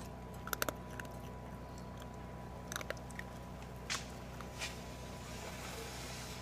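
Two young raccoons eating dry kibble from a steel bowl: scattered crisp crunches and clicks, a quick cluster of them about half a second in, over a steady low hum.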